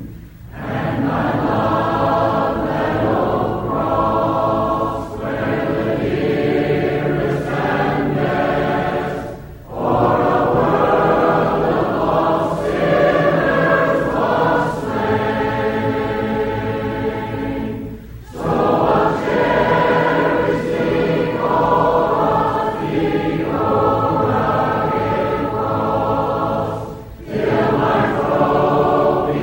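A group of voices singing a hymn together, in long sustained phrases with a short break roughly every nine seconds.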